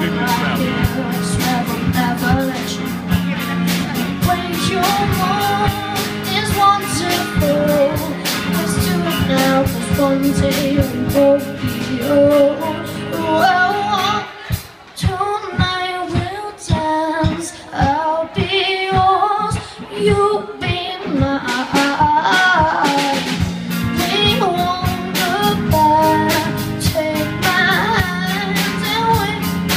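A young rock band playing live: a boy singing over electric guitar and drum kit. About halfway through, the guitar and low end drop out for several seconds, leaving the voice over sparse, regular hits, then the full band comes back in.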